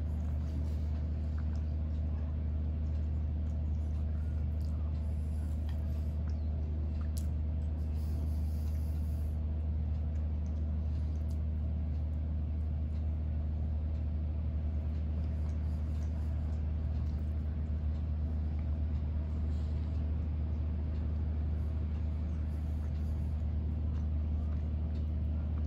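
A steady low hum runs throughout, with faint mouth sounds of someone chewing soft cake over it.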